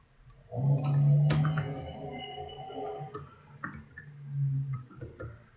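Typing on a computer keyboard, with scattered key clicks. Under it, starting about half a second in, a low steady hum holds for about two and a half seconds and comes back briefly about four seconds in; this hum is the loudest sound.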